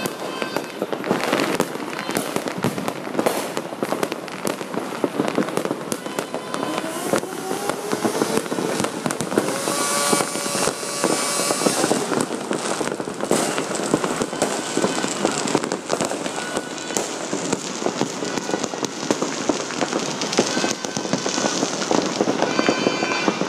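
Many aerial fireworks going off at once: a dense, unbroken crackle of bangs and pops.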